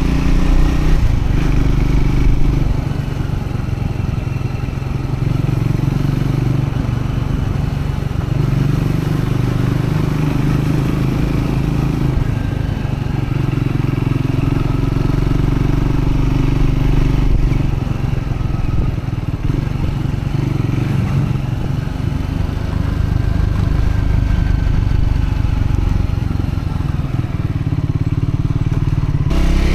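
Triumph Scrambler 400X's single-cylinder engine running as the bike is ridden along at easy break-in pace. The engine note shifts in pitch and level several times as speed and gear change.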